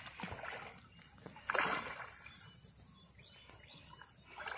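Water splashing and sloshing in a few short bursts, the loudest about a second and a half in.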